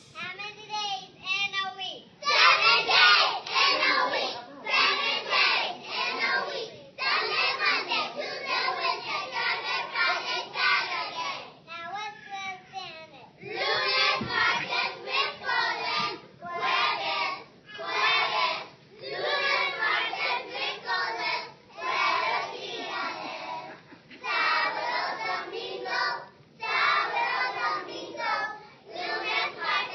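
A children's choir singing together in short phrases with brief pauses between them.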